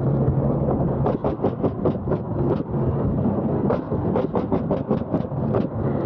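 Coil nailer bump-firing nails into sheathing, a fast run of sharp nail-gun shots at about five a second, with a steady low hum underneath.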